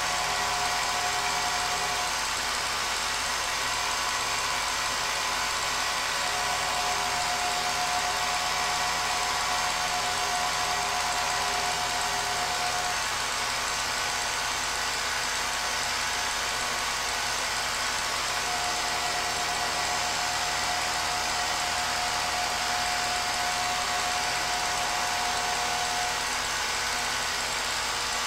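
Film projector running: a steady mechanical whir of motor and fan, with hiss and a thin hum tone that fades in and out a few times.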